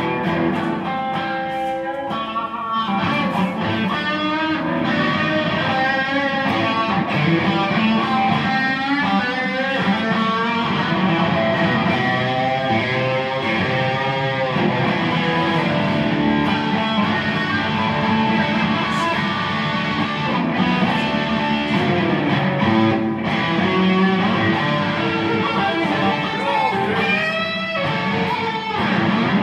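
Electric guitar played solo through a pedalboard, a continuous stream of single-note lines and chords with bent, wavering notes.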